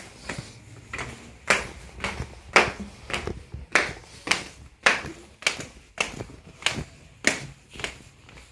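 Footsteps walking down a staircase, a steady pace of about two steps a second.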